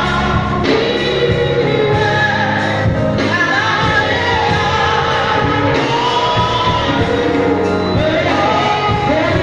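Live gospel music: a woman singing lead into a microphone over a band with drums and bass, the melody continuous with no pause.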